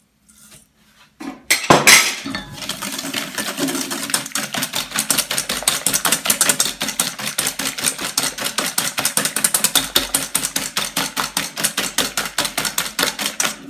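Wire whisk beating eggs and sugar in a stainless steel bowl: the wires clink rapidly and steadily against the metal, several strokes a second. The whisking starts about two seconds in, after a couple of sharp knocks.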